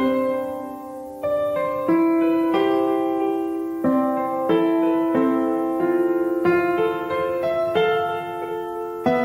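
Background piano music: a slow, gentle run of single notes and chords, each struck and left to fade before the next.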